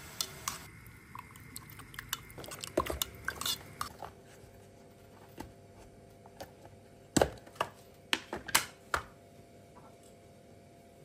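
Kitchen handling sounds: irregular knocks and clinks of dishes and utensils being set down and moved. The loudest knocks come about seven and eight and a half seconds in.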